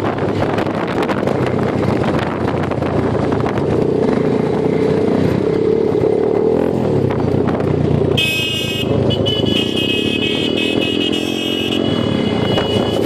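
Off-road vehicle engine running while driving. About eight seconds in a vehicle horn sounds, first a short blast and then a longer held one.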